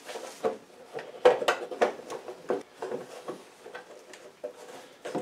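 Black cowling of a Snap-on 20-gallon upright air compressor being worked loose and lifted by hand: a string of knocks, clicks and rattles, loudest between about one and two seconds in.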